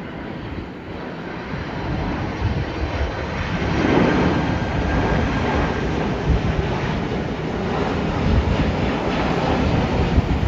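Jet engines of a McDonnell Douglas MD-11F tri-jet cargo plane on final approach, a broad rushing engine noise that grows louder about four seconds in as the plane comes closer. Wind buffets the microphone throughout.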